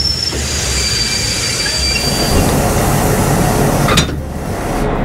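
Train of vintage passenger carriages rolling slowly past, rumbling on the rails, with the wheels squealing in a thin high steady tone that fades out about halfway. A sharp click about four seconds in.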